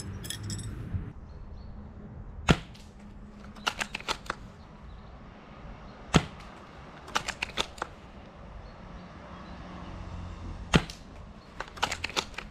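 Ares Striker 01 spring bolt-action airsoft rifle fired three times through a homemade silencer packed with kitchen sponge foam and black foam, each shot a sharp, muffled snap. After each shot comes a quick run of three or four smaller clicks as the bolt is worked to reload.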